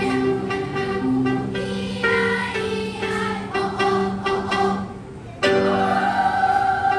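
A choir singing in harmony, holding and changing notes. It drops in loudness about five seconds in, then comes back in louder and fuller.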